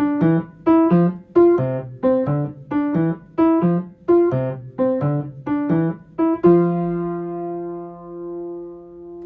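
Piano playing a simple, evenly paced figure of short notes with a plain one-note bass, then landing on a held chord about six and a half seconds in that rings out and fades.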